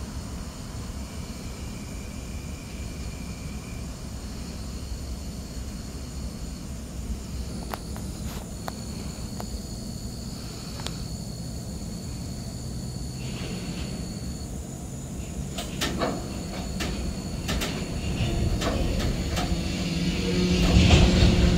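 Freight train cars standing and then starting to roll: a low steady rumble, with scattered clanks and knocks from couplers and running gear that come thicker about two-thirds of the way in. Near the end the sound grows louder and a steady tone comes in as the train gets moving again.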